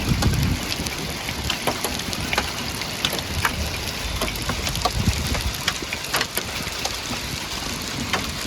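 Rain falling on a vehicle, a steady hiss broken by scattered sharp drop ticks, with the vehicle's engine running low underneath.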